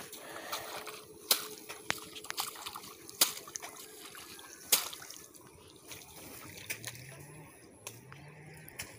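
Water and mud splashing and sloshing as hands work rice seedlings in a flooded paddy, with several sharp splats. A faint low tone rises and repeats about once a second near the end.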